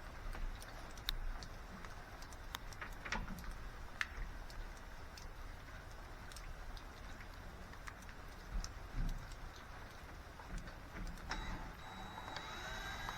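Scattered light clicks and ticks of a small hand driver and metal parts as the screws holding an old camper shell door handle are worked loose.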